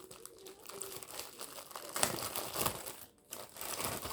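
Close-up eating sounds: crackling, crinkling noises of food being torn and eaten by hand, loudest about two seconds in.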